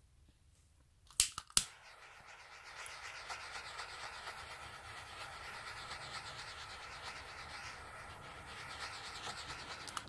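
Handheld butane torch clicked twice by its igniter, then lighting and hissing steadily as its flame is passed over wet acrylic paint on a coaster.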